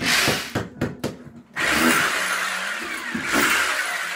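A power tool running on a building site, with a few sharp knocks in the first second and a half before the motor noise settles into a steady run.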